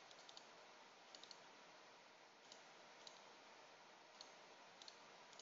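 Near silence with faint, scattered computer mouse clicks, a few coming in quick clusters of two or three.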